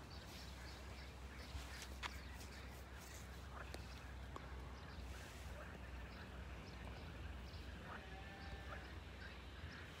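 Quiet outdoor ambience of sheep grazing: scattered short clicks of grass being cropped, with small birds chirping in the background and a low rumble of wind on the microphone.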